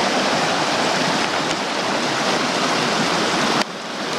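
Mountain creek rushing over rocks in small rapids: a steady, full water roar that drops off briefly near the end.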